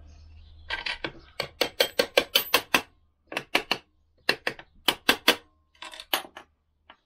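Hammer tapping a Lambretta gearbox end plate onto its bearing: a quick run of light, sharp metal taps, several a second, pausing about three seconds in and again near the end. The plate is being eased on gently rather than forced.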